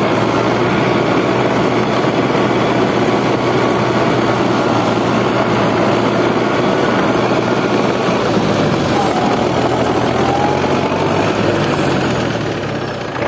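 DT-75 crawler tractor's turbocharged SMD diesel engine running steadily under load while the tractor drives in seventh gear, heard from the open cab; it quietens slightly near the end.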